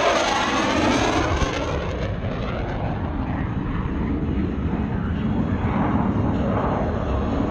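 Military fixed-wing aircraft flying past, loud. Its engine noise sweeps down in pitch over the first couple of seconds, then carries on steadily.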